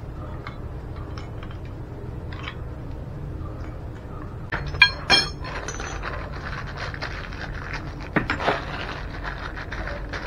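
Brass shower mixer valve body with copper fittings clinking twice with a bright metallic ring as it is set down, about halfway through. Then paper crinkles as small fittings are unwrapped, with small clicks throughout.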